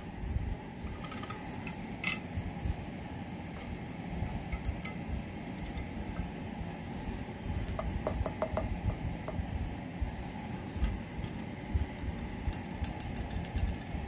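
Hands handling a fire alarm bell and its lead wires: scattered light clicks and taps over a low rumble of handling noise, with small clusters of clicks about eight seconds in and again near the end. The bell is not ringing.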